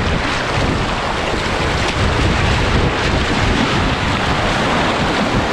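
Rushing river water churning around a kayak surfing a small river wave, with paddle strokes in the water and wind buffeting the microphone with a low rumble.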